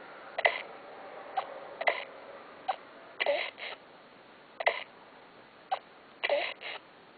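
Baby sucking and gulping milk from a feeding bottle: short wet clicks and swallows about once a second, some in quick pairs.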